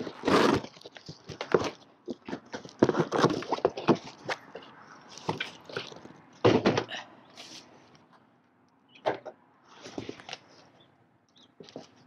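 Cardboard box being opened by hand: a knife slitting the packing tape, then the flaps scraping and being pulled open, in irregular bursts of rustling and scraping.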